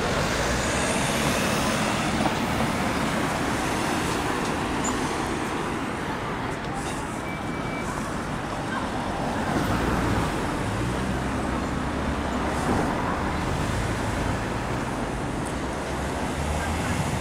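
Busy city street traffic: a steady wash of car engines and tyres on the road.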